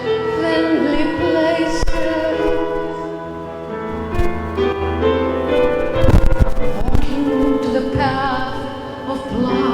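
Live worship music: a singer holds long wavering notes over sustained chords and a low bass, and drum hits join about six seconds in.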